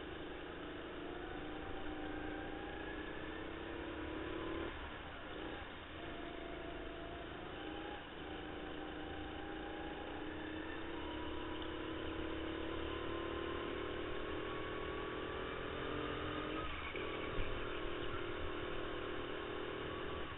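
Indoor racing kart's motor running flat out through a lap, its pitch climbing slowly along each straight and dropping briefly as the driver lifts for corners about five, eight and seventeen seconds in. A short knock near the end.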